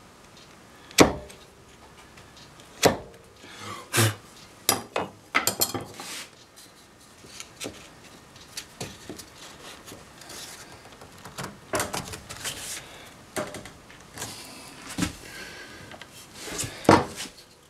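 Mallet striking a chisel to chop waste out of a groove in a pine board: sharp knocks about two seconds apart, then a quicker run of knocks about four seconds in. Later come softer knocks and the rubbing of wood on wood as a board is tried in the groove.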